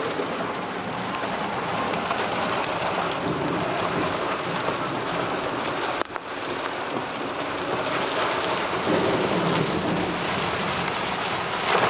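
Heavy rain falling on a car, heard from inside the cabin: a steady, even hiss that dips briefly about halfway through.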